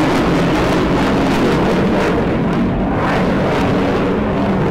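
Jet noise from a Eurofighter Typhoon's twin Eurojet EJ200 turbofans, loud and steady as the fighter flies its display overhead, with a rough crackle running through it.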